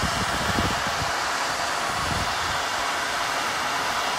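Handheld hair dryer running on high, a steady rush of blown air with an uneven low rumble underneath.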